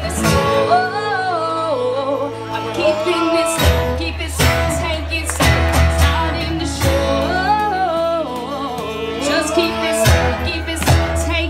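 A live band is playing: a woman sings over acoustic and electric guitars with a steady drum beat. The low bass drops out for a few seconds near the start and then comes back in.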